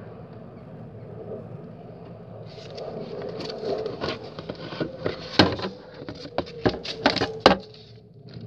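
Low steady rumble of an airplane passing overhead, then from about two and a half seconds in, paper being handled, rustling and crinkling, with several sharp knocks.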